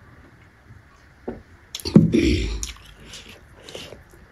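Mouth sounds of a person drinking water from a steel tumbler: quiet sips and swallowing, with a louder wet mouth sound about two seconds in.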